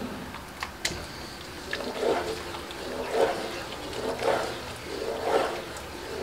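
Wooden spoon stirring thick, creamy tikka masala sauce in a frying pan as heavy cream is stirred in: a wet slosh about once a second, with a couple of light clicks near the start.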